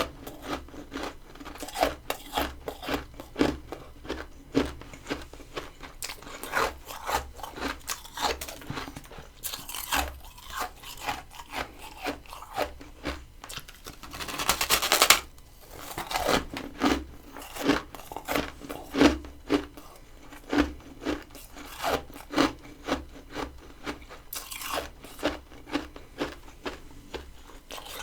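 Crunchy freezer frost being chewed close to the microphone: a steady run of crisp crunches, about two a second. About halfway through comes one longer, louder stretch of crackling.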